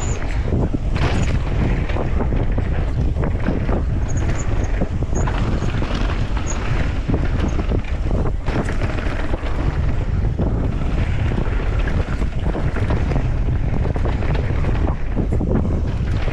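Heavy wind buffeting the microphone: a steady rushing noise strongest at the low end, with scattered short knocks.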